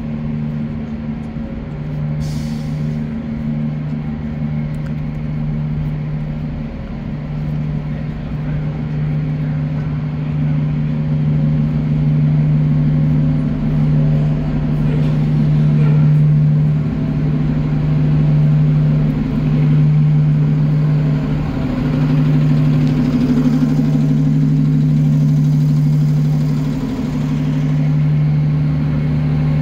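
Idling city transit buses: a steady low engine drone that gets somewhat louder about a third of the way through.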